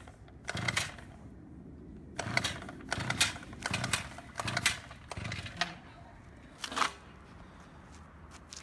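About seven short clattering knocks at irregular intervals, over a faint steady background.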